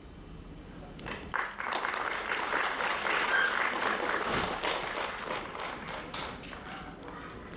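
Audience applauding. The clapping starts about a second in, swells, then fades away.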